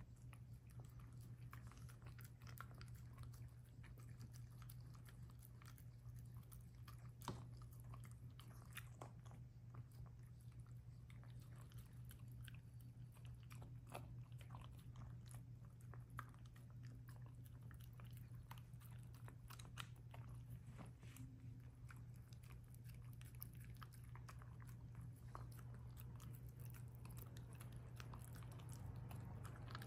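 Small dog eating soft shredded food from a hand-held stainless steel bowl: faint chewing and smacking with many scattered small clicks, over a steady low hum.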